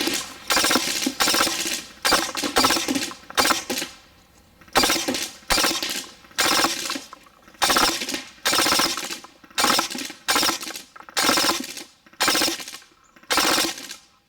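EMG Seekins Precision SP223 airsoft electric rifle (AEG) firing in full auto: about fifteen short bursts, each well under a second, with a rapid mechanical chatter of shots inside each burst.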